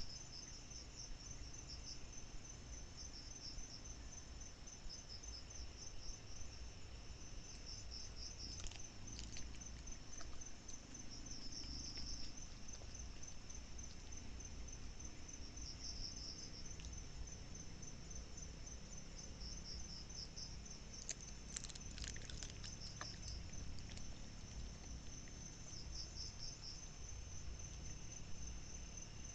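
Crickets chirping in steady high-pitched trills that pulse in repeated phrases, with a low rumble underneath. A few brief faint clicks come about a third of the way in and again around two-thirds through.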